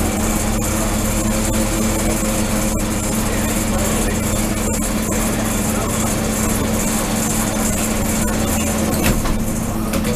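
Lobster boat's engine running steadily, with a constant hiss over it.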